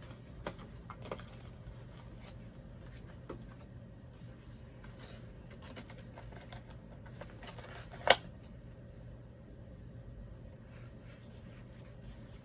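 Handling of a toy's plastic packaging and small accessories: scattered light clicks and rustles, with one sharper click about eight seconds in.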